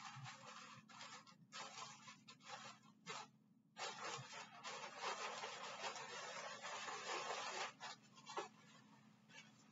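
Rustling of a blue disposable protective gown being unfolded, shaken out and pulled on. It comes in short bursts at first, is densest and loudest from about four to eight seconds in as the gown is spread and the arms go in, then tapers off.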